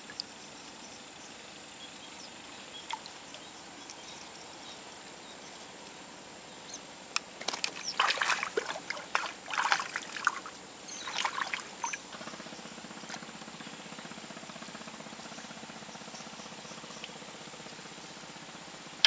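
Steady high insect drone over outdoor quiet. About seven seconds in, a few seconds of quick knocks, clicks and rustles as a just-landed tilapia is handled and unhooked along with the pole and line.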